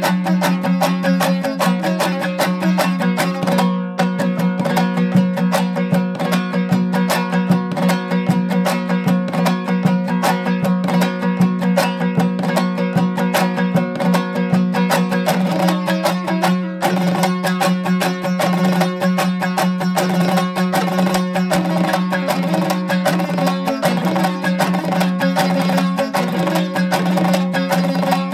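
Background music: a fast plucked-string instrumental, many quick plucks over a steady low drone.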